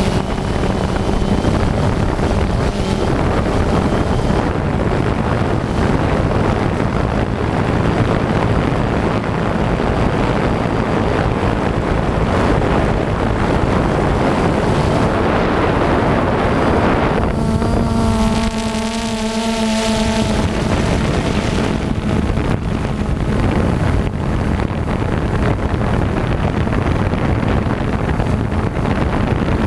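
FPV quadcopter's electric motors and propellers buzzing steadily, with wind rushing over the microphone. A little past halfway, a clearer hum with several steady pitched tones stands out of the noise for a few seconds.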